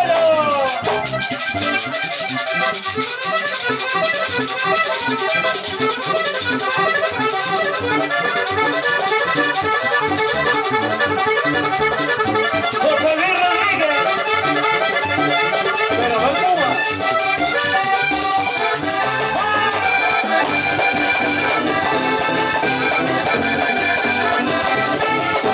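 A vallenato band playing live, a button accordion leading with quick runs of notes over bass guitar and hand percussion.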